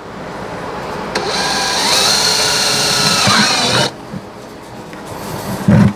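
Cordless drill running for about three seconds as it bores a 3/8-inch hole through a plastic bucket, its motor whine rising, holding and then dropping off as it stops. A low knock follows near the end.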